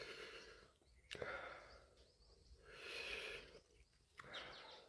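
Faint, slow breathing through the open mouth: about four soft breaths a second or so apart, with one sharp click about a second in.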